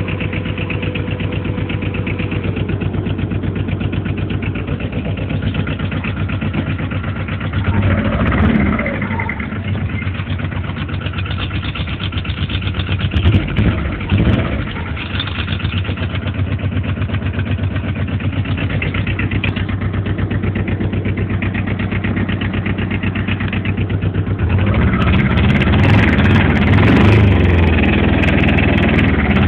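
Arctic Cat 700 ATV's two-cylinder Lombardini diesel engine idling with a steady, even beat. A few short knocks come about 8 and 14 seconds in. Near the end the engine sound grows louder and fuller.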